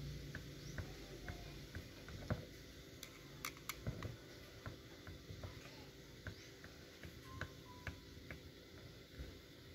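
Light, irregular clicks and taps of small parts and tools being handled while an OKO 28 mm flatslide carburetor is reassembled by hand, with one sharper click about two seconds in.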